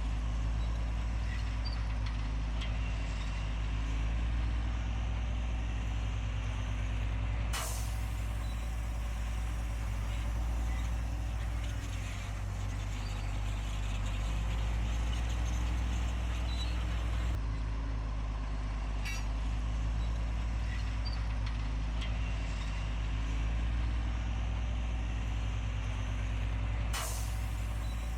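Heavy diesel construction machinery running steadily, its engine a low constant drone, with two sharp clicks, one early and one near the end.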